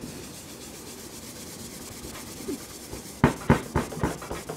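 Hand rubbing carnauba wax onto a Bakelite radio case. It is faint at first, then from about three seconds in it turns to brisk rubbing strokes, about four a second.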